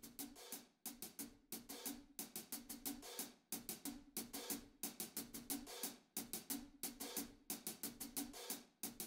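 Quiet cool-jazz drum intro: a drum kit's hi-hat and cymbals playing a steady rhythm alone, several light strokes a second.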